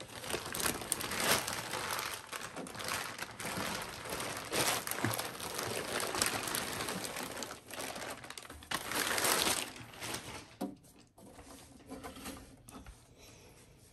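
Clear plastic bag crinkling and rustling as a heavy inverter is turned over inside it. The rustling is steady for about ten seconds, then drops to a few faint crinkles and light knocks.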